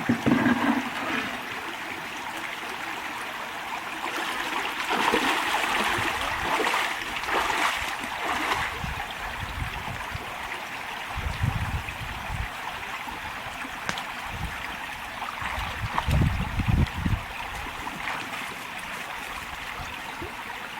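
Creek water running and trickling in a steady rush, a little louder for a few seconds after the start, with a few low rumbles partway through and near the end.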